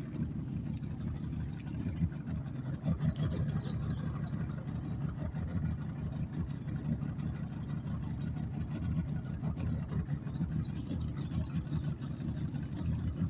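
Boat motor running steadily at low trolling speed, a continuous low rumble with water noise. Two brief clusters of high chirps are heard, about three seconds in and again about ten seconds in.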